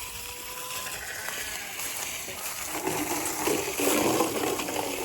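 Water running and splashing as the livestock water is filled, growing louder from about three seconds in.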